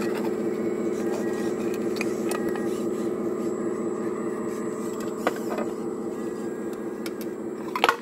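RC excavator's electric drive motors whining steadily as the arm digs and swings. There is a sharp knock about five seconds in and a louder clatter just before the end.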